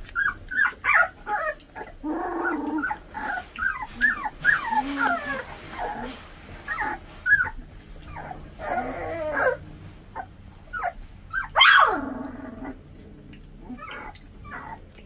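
A litter of 20-day-old Goldendoodle puppies vocalising at play: many short, high-pitched squeaks and whines, often overlapping and sliding in pitch. About twelve seconds in comes one louder cry that falls steeply in pitch.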